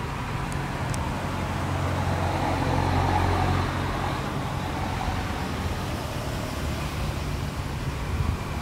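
Low, steady rumble of a vehicle engine in the background, swelling for a couple of seconds about two seconds in and then easing back to a steady hum.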